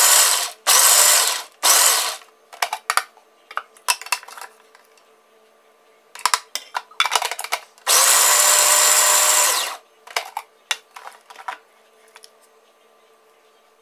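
Electric food processor chopping roasted nuts: the motor runs in three short pulses at the start, then once more for about two seconds past the middle, its pitch rising as it spins up and falling as it stops. Clicks and knocks of the plastic bowl and a spoon come in between.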